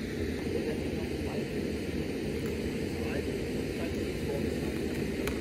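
Steady low outdoor rumble, with a few faint knocks.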